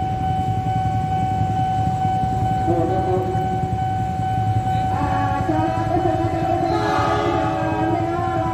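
Approaching train with its horn sounding a long, wavering multi-tone blast from about five seconds in, over a steady high-pitched tone.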